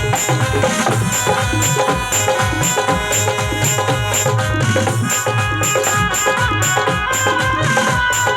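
Live Indian devotional band music, amplified through a PA: hand drums keep a steady, fast beat with a bright ticking percussion on top, and a sustained melody line comes up over the second half.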